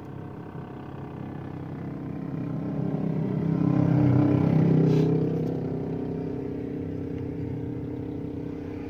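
Engine and road noise heard inside a moving car's cabin, a steady low drone. About three seconds in it swells into a louder engine sound that peaks and then fades back over the next few seconds.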